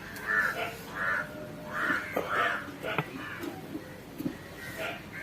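Crows cawing repeatedly, a series of short harsh caws about half a second to a second apart, with a couple of sharp clicks in between.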